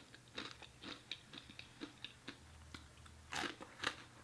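A person chewing food close to the microphone: a run of soft, wet mouth clicks and smacks, with two louder chews a little after three seconds in.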